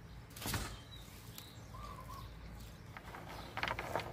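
Mud-caked freshwater snail shells clattering as they are handled and dropped into a plastic mesh bag, with a sharp rattle about half a second in and a quick cluster of clicks near the end. A bird chirps faintly in between.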